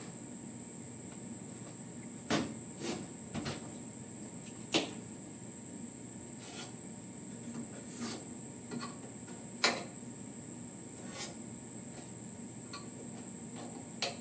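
Sharp light knocks and clicks of a hand-formed sheet-steel vent pod being pressed and test-fitted into a 1966 Ford F100's steel dash, about ten of them at irregular intervals, over a steady high-pitched whine.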